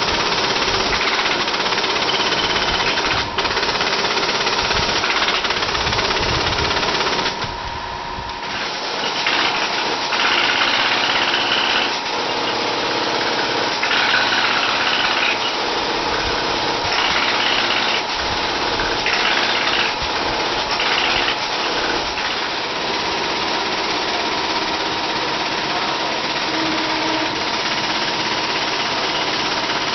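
Wilcom AutoTuft robotic tufting gun running steadily, its needle rapidly punching yarn into the backing cloth with a fast, continuous mechanical chatter. The noise briefly eases about eight seconds in, then carries on.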